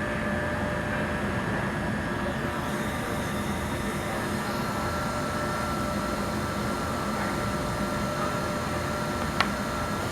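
Leister hot air welder running through its warm-up: its blower gives a steady rushing hiss with a thin whine that settles a little lower about four seconds in. A single sharp click near the end.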